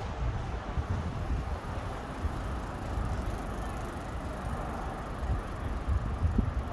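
Outdoor city ambience: uneven wind rumble on the microphone over a steady wash of distant road traffic, getting gustier near the end.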